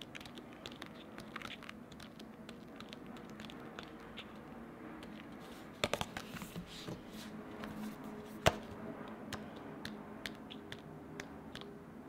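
Pages of a paper sticker book being turned one after another: light paper rustling and crackling with small ticks, and one sharper click partway through.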